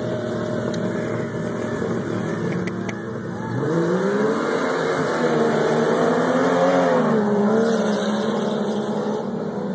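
Jeep Cherokee engines in a sand drag race: first a steady engine note at the line, then a few seconds in they launch, and the engine note rises and wavers loudly as they accelerate hard away across the sand.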